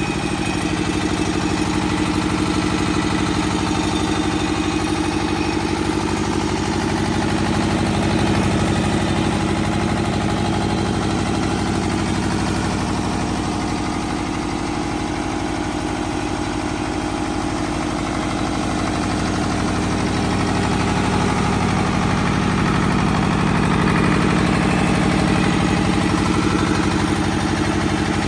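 Two-cylinder diesel engine of a 20 kVA open generator set running steadily at a constant speed, with an even, rapid firing beat.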